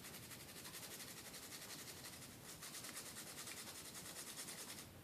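Rapid rubbing strokes on an iPod Classic's circuit board while it is cleaned with isopropyl alcohol: a faint, fast, even scrubbing hiss of about ten strokes a second that stops suddenly near the end.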